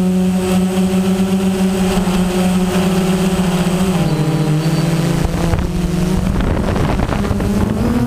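Multirotor drone's motors and propellers humming steadily. The pitch drops about four seconds in, the hum turns rough and noisy for a couple of seconds, then the pitch rises again near the end.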